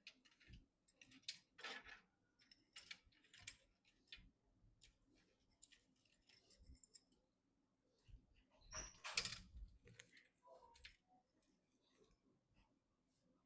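Faint handling noises of PC parts and tools: scattered light clicks and taps, with a brief louder rustle, like plastic or packaging, about nine seconds in.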